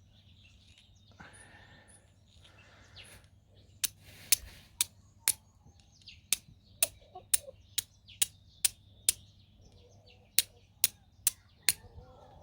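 Small steel fire striker struck again and again against a flint shard: a run of sharp, short clicks at about two a second, beginning about four seconds in.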